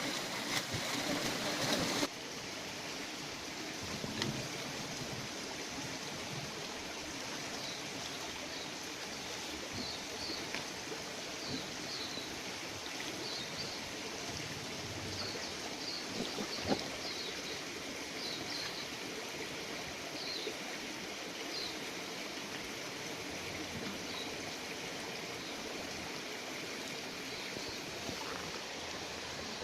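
Steady rush of flowing stream water, with a scattering of short, high bird chirps over the middle part.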